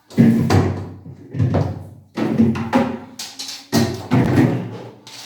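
Plastic fridge shelves and compartments clattering and knocking as they are pulled out and handled: a run of sharp knocks, about eight in five seconds at uneven spacing, each ringing off briefly.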